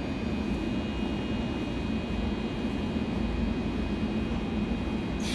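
Seoul Subway Line 8 electric train standing at the platform with its doors open: a steady hum and low rumble with several steady high whining tones. A higher hiss comes in right at the end.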